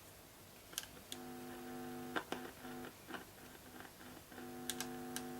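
Faint, thin music from a record playing through the Dansette Popular record player's speaker, in two short stretches of held notes, with scattered clicks. The output is this weak because the cartridge is dead.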